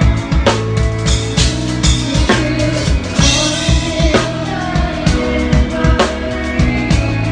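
Live band music heard close to the drum kit: steady kick and snare strokes over a bass line, with a crash cymbal struck about three seconds in.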